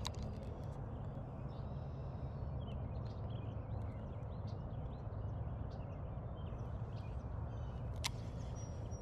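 Small birds chirping and calling on and off over a steady low rumble, with a sharp click near the end.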